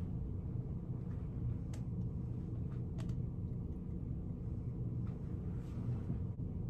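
Steady low hum of a small room's background, with a few faint light ticks, about two and three seconds in.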